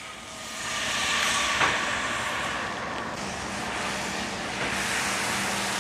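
Cold heavy cream poured into a hot butter-and-flour roux in a cast-iron skillet, sizzling with a steady hiss that builds in the first second, then whisked in with a silicone whisk.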